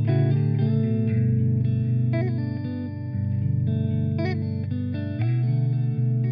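Electric guitar with a clean tone playing held chords and single notes that ring on, with two short slides in pitch, about two seconds in and again about four seconds in.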